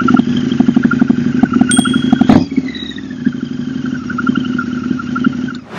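Harley-Davidson V-Rod Night Rod Special's V-twin engine running loudly as the motorcycle pulls away, then about two and a half seconds in dropping in level and falling steadily in pitch as it rides off.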